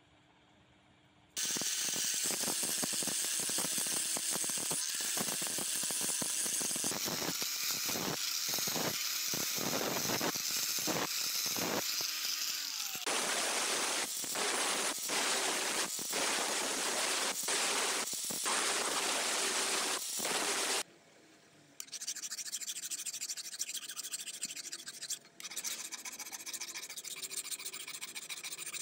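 Hand file scraping along a forged steel knife blade in repeated strokes. The filing is loud at first, stops briefly about two-thirds of the way through, then goes on more quietly.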